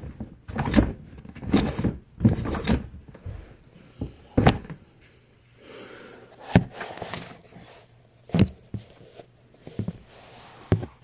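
Fidget toys being handled and set down one after another while being counted: an irregular series of knocks and clatters with handling rustles between them.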